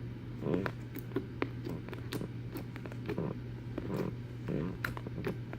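Slime being squished and poked by hand, giving an irregular run of small sticky clicks and pops, over a steady low hum.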